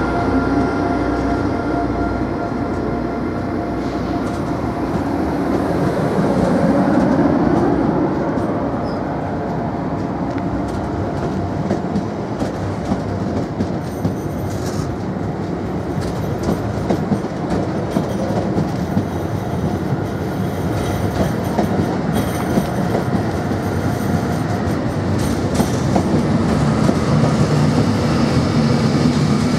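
Passenger coaches of a diesel-hauled train rolling steadily past as the train pulls out, wheels clacking over the rail joints. The last coach passes near the end.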